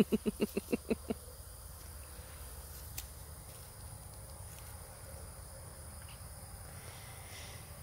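Insects buzzing steadily as a thin high drone. About eight short, quick pulses, the loudest sound, come in a run during the first second.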